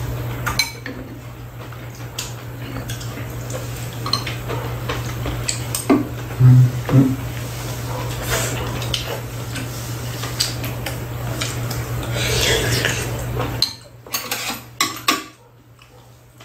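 Metal spoons and chopsticks clinking and scraping against bowls and a metal serving tray during a meal, in scattered clicks with a few louder knocks about halfway through. A steady low hum underneath stops about three seconds before the end.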